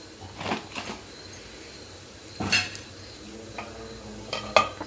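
Metal utensils knocking and clinking against a steel pressure cooker, a handful of separate clinks with the loudest and briefly ringing one near the end.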